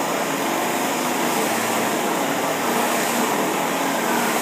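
Running chainsaw engine, a steady motor drone that neither rises nor falls.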